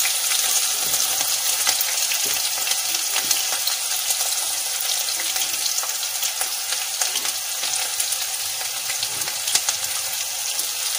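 Freshly added chopped onions sizzling in hot oil with spluttering mustard seeds in a stainless steel pan: a steady hiss with scattered crackles and pops.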